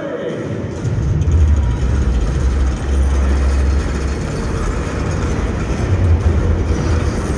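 Loud, deep rumble from the arena sound system, a cinematic low-end sound effect under the pregame show. It comes in about a second in and holds, with a steady wash of arena noise above it.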